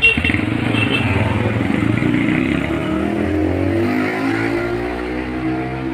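Motorcycle engine with a PE28 carburettor, BRT racing CDI ignition and a gutted stock muffler, accelerating hard under test: a loud start, then the engine note climbs steadily in pitch as the revs rise.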